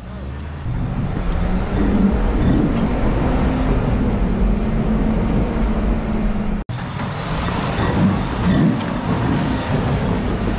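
Ford Excursion's engine working steadily under load as the SUV crawls up a rock obstacle, with the rumble of the tyres on rock. It gets louder about half a second in and cuts out for an instant about two-thirds of the way through.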